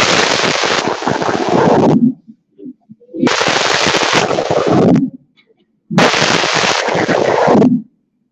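A class of schoolchildren reciting a poem in unison, heard as loud, badly distorted, crackling sound. It comes in three phrases of about two seconds each, with short pauses between them.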